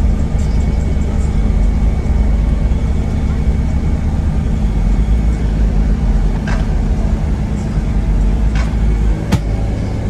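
Pickup truck's engine idling steadily, heard from inside the cabin, with a few sharp clicks in the second half.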